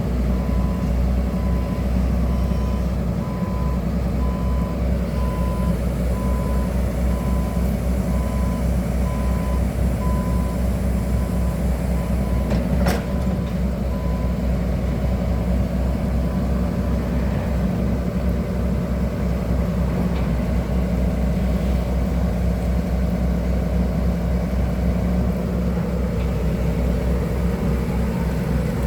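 Excavator diesel engine running steadily, with its warning alarm beeping evenly at one pitch for about the first ten seconds. One sharp click comes about thirteen seconds in.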